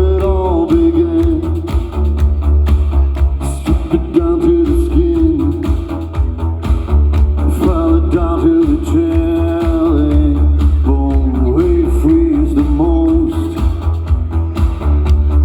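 A band playing a song, with a singer holding long, wavering wordless notes over a heavy, steady bass line and a regular drum beat.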